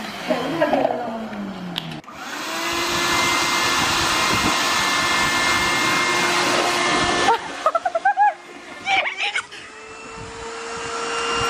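Small wet/dry shop vacuum motor running with a steady whine. About seven seconds in it cuts out. A couple of seconds later it starts again, its pitch and loudness rising as it spins back up.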